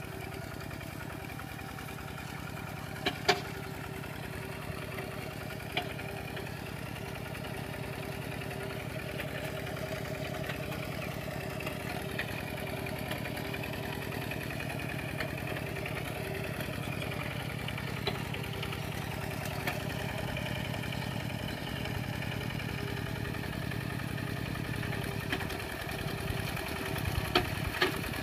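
Kubota RT120 single-cylinder diesel engine of a walk-behind tractor running steadily under load as it drives its cage wheels through paddy mud. A few sharp knocks cut through, two about three seconds in and a couple near the end.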